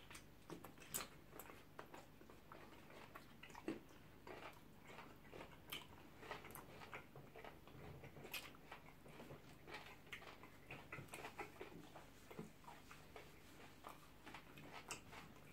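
Faint close-up eating sounds: chewing and small wet mouth clicks, scattered irregularly, from people eating pounded yam and ogbono soup with cow skin by hand.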